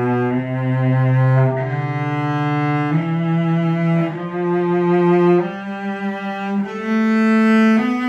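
An old German cello made in Saxony around 1900, bowed in long sustained notes of about a second each, changing note in a line that climbs in pitch.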